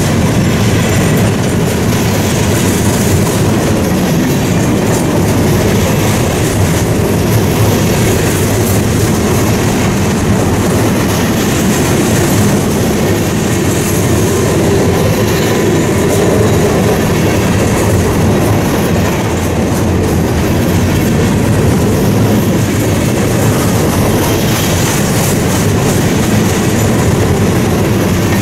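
A train rolling past on the track, its wheels running steadily over the rails.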